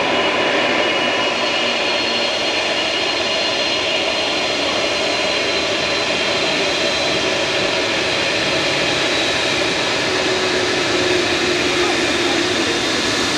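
Boeing 787 Dreamliner's turbofan engines running at taxi power as the airliner taxis past, a steady jet noise with a faint high whine.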